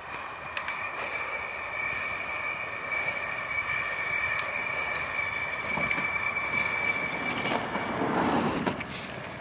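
A bicycle rolling fast down a road with a steady high whine from the wheels and a rush of wind noise. A car passes near the end, loudest about eight seconds in.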